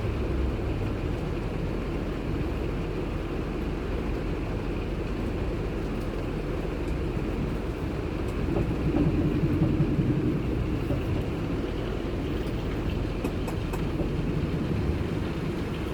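Steady low rumble of a moving vehicle heard from a car-mounted camera, swelling louder for a couple of seconds about nine seconds in.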